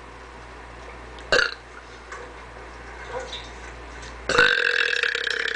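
A woman belching on purpose: a brief sharp sound about a second in, then a loud, long drawn-out belch held at a steady pitch that starts near the end.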